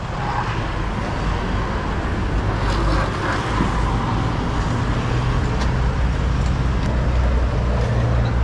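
Engine idling steadily, a low even hum, with traffic noise behind it and a few faint clicks.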